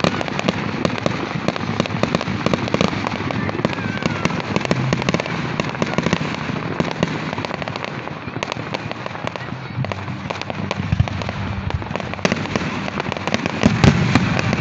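Fireworks going off in a rapid, continuous crackle of cracks and pops, with a few louder bangs near the end.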